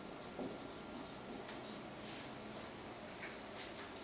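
Marker pen writing on a whiteboard: a series of faint, short squeaky strokes.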